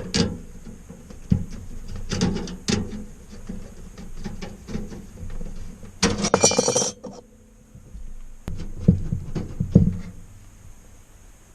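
Hands working on a desktop PC's case and power supply: irregular clicks, taps and knocks of metal and plastic parts. About six seconds in comes a dense rustling burst lasting about a second, and a few heavier knocks follow a few seconds later.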